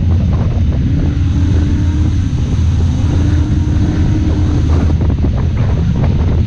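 Off-road vehicle engine running while driving over rough ground, with a couple of slow rises and falls in pitch, rattles from bumps, and wind buffeting the microphone.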